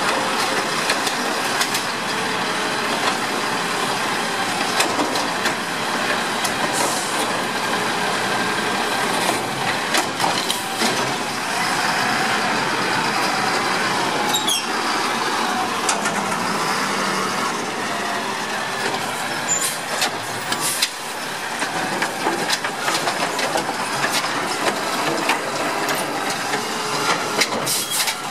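Side-loading garbage truck running, its automated arm lifting and emptying wheeled carts, with a steady mechanical din broken by many knocks and clatters from the arm and the carts. A brief squeal comes about halfway through.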